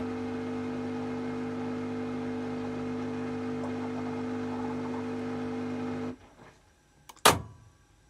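Washing machine running with a steady hum that cuts off suddenly about six seconds in, followed a second later by a single sharp click.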